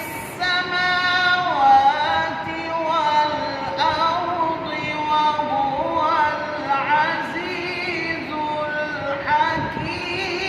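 A male qari reciting the Quran in Arabic in the melodic tajwid style, drawing out long, ornamented notes that waver and glide in pitch, with short pauses between phrases.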